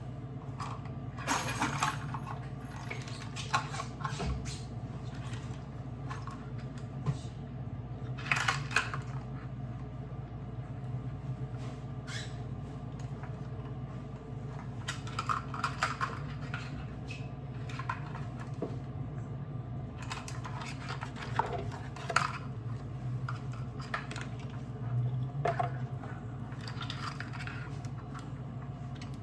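Kitchen bowls, utensils and containers being handled while making cake batter: scattered clinks, knocks and clatters, over a steady low hum.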